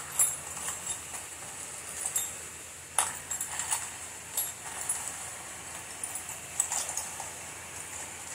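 Small metal driver bits clinking and rattling in a plastic tub as a hand sifts through them: irregular light clicks, with a louder clack just after the start and another about three seconds in.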